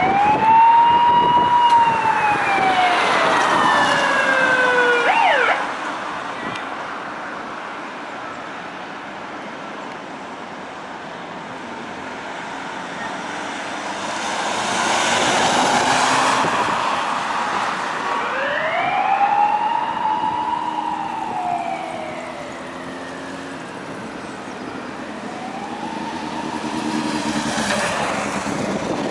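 Police car siren on wail: a slow rise and fall in pitch that drops off abruptly about five seconds in. Traffic noise follows, swelling as a car passes around fifteen seconds in. The siren wails again at about eighteen seconds and starts another rise near the end.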